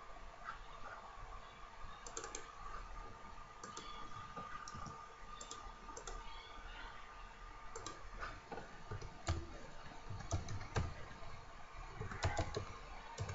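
Computer keyboard typing and mouse clicks, sparse at first and coming closer together in the last few seconds, over a faint steady hum.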